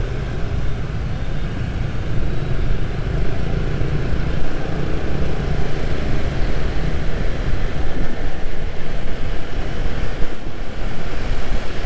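Road traffic noise from city streets: vehicles and engines passing, with a steady, loud low rumble.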